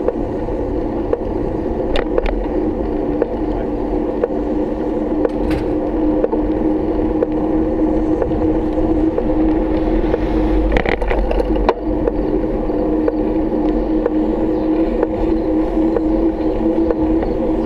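Steady ride noise of a bike rolling along a paved road, heard through a bike-mounted GoPro: a constant hum over a low rumble. There are sharp clicks about 2 and 5 seconds in, and a brief rattle a little past halfway, as the bike goes over bumps.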